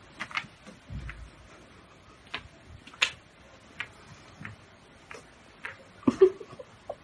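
Scattered light clicks and taps at irregular spacing, the sharpest about three seconds in and a short cluster near six seconds.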